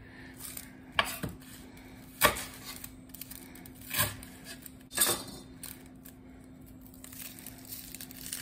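Kitchen knife working a white onion on a cutting board: four sharp knocks on the board, roughly a second apart, with a few lighter ticks between.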